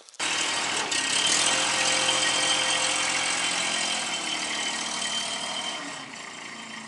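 Tractor engine running steadily, cutting in abruptly, then dropping to a lower idle about six seconds in.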